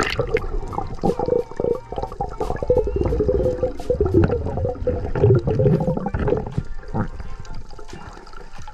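Sea water rushing and gurgling, with uneven churning.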